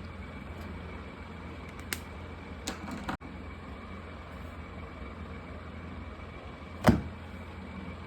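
Markers being handled on a drawing surface: a few light clicks and taps, then one louder knock about seven seconds in, over a steady low hum.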